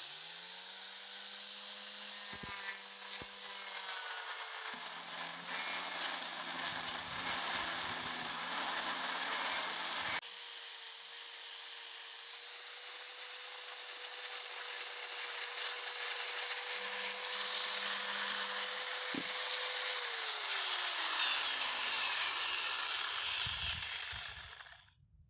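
Electric angle grinder spinning up, running steadily with a rasping sanding noise as a wood block with sandpaper is held against the spinning sponge pad to shape it round. About twenty seconds in its whine falls as it is switched off and winds down, and the sanding noise fades soon after.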